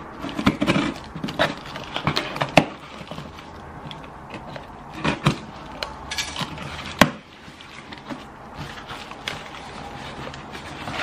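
A cardboard parcel box being opened: scissors cutting through its packing tape, then the flaps pulled open, giving scattered clicks, knocks and scrapes of scissors and cardboard.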